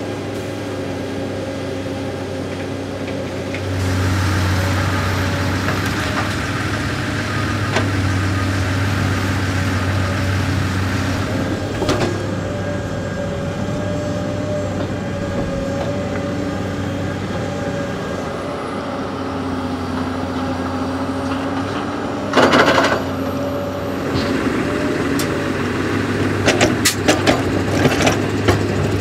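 Komatsu PC 210 LC hydraulic excavator's diesel engine and hydraulics working, with the Fendt 930 Vario tractor running beside it, as gravel is loaded into a dumper trailer. The engine note steps up about four seconds in. There is a brief loud burst a little past twenty seconds, and near the end a clatter of stones dropping into the trailer body.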